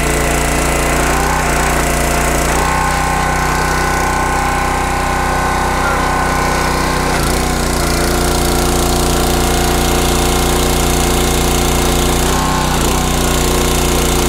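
Small gasoline engine of a PLOW GLS20 hydraulic log splitter running steadily while its hydraulic pump builds pressure on the ram's return stroke. The pitch of the running shifts about seven seconds in and again near the end as the load changes.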